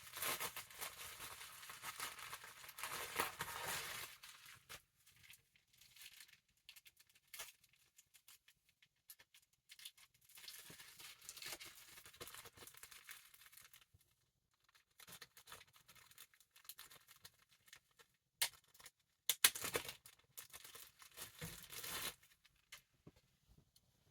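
Action-figure packaging being handled and opened: faint, intermittent tearing and crinkling, with a few sharp clicks.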